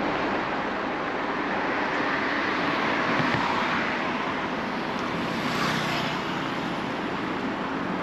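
Steady road and traffic noise: an even rush that holds the same level without swelling or fading.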